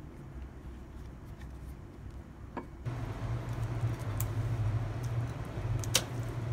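Kitchen scissors cutting through a boiled chicken, starting about three seconds in, with sharp clicks of the blades, two of them standing out about a second and a half apart, over a steady low hum.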